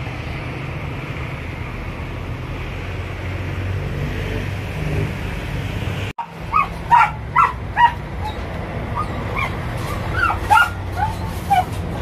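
A dog yipping and barking in short, sharp calls, three loud ones in quick succession shortly after the middle and more scattered near the end, over a steady low hum. The sound cuts out for an instant about halfway through.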